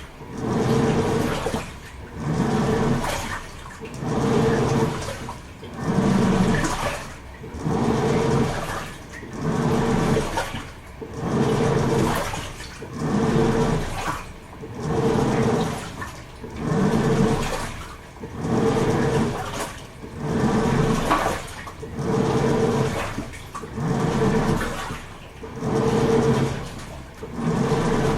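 Toshiba AW-42SEE4(S) top-loading washing machine agitating its load. The pulsator motor drives the water back and forth, so the churning and sloshing swell and fade in an even rhythm, about one surge every second and a half or so, with a motor hum under each surge.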